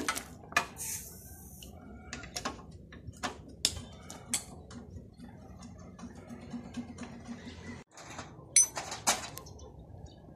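Wrenches and metal engine parts clinking and knocking as a VW Beetle engine is taken apart by hand: irregular sharp metallic clicks, with the loudest pair of knocks near the end.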